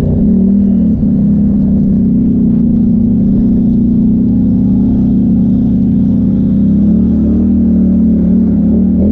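Onboard engine of a 2017 Polaris Sportsman XP 1000 ATV, a parallel twin, running hard at steady revs while riding over dirt, its pitch holding level and dipping slightly near the end.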